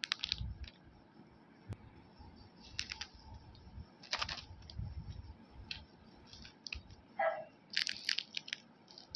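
Plastic packaging being handled and crinkled: scattered, irregular clicks and rustles, with thicker bursts about three, four and eight seconds in.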